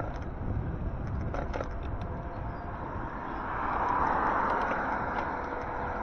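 Road traffic: a steady low rumble, with a passing car's noise swelling about three seconds in and easing off near the end.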